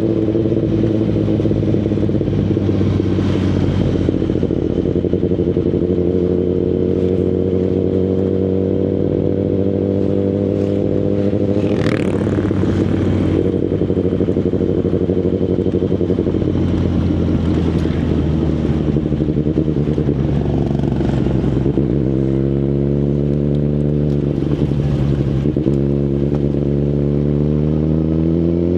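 2019 Kawasaki Ninja ZX-10RR's inline-four engine through an Akrapovic Evolution Line carbon full exhaust, heard while riding. It makes a steady drone as the revs ease down slowly over the first half, then picks up again twice near the end.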